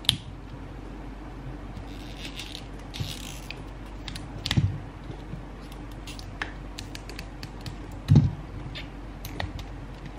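Fingers picking at and peeling the plastic wrapping of an L.O.L. Surprise ball: scattered small crackles, scratches and clicks, with two soft bumps about four and a half and eight seconds in.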